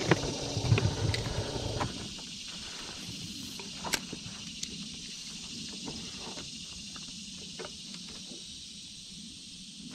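A steady, high-pitched insect chorus runs throughout. Over it come rustling and knocks from handling a spinning rod and reel in the boat for the first two seconds, then scattered light clicks.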